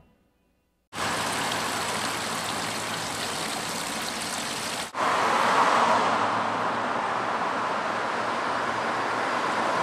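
Water from a stone wall fountain falling into its basin, a steady rush that starts about a second in. About five seconds in it cuts to a louder steady rush of street ambience with traffic.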